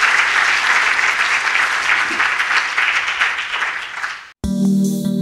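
Audience applauding, the clapping fading out about four seconds in; after a moment of silence, music starts near the end.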